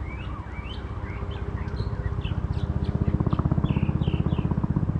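A songbird chirping a quick run of short high notes, over the low, rapid beat of a helicopter's rotor that grows louder from about two seconds in.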